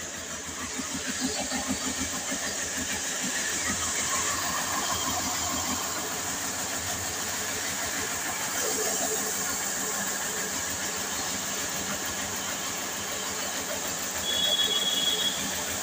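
Electric flour mill (atta chakki), a 24-inch millstone mill driven through a flat belt by a 10 HP motor, running steadily with a fast, even pulsing. A short high whistle-like tone comes in briefly near the end.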